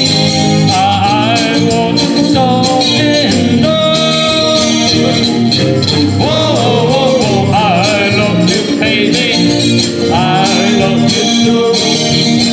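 Live band playing an upbeat pop song with a steady beat.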